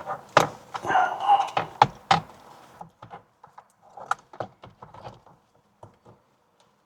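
Hand tools working on a steering wheel bolt with a 15 mm socket: a few sharp metallic clicks and knocks in the first two seconds, then lighter, scattered clicks that die away after about six seconds.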